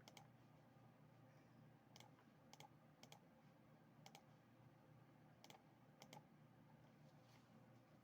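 Computer mouse clicking: a few sharp clicks spaced irregularly, some in quick pairs, over a faint steady hum.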